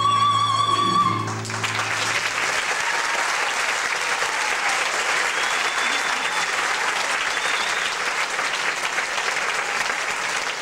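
A singer's high final note, held with a slight vibrato over a low sustained piano chord, ends about a second in and gives way to steady audience applause.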